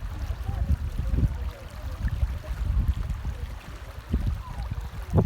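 Flood water running in a desert wadi after rain, a continuous rushing with a heavy low rumble.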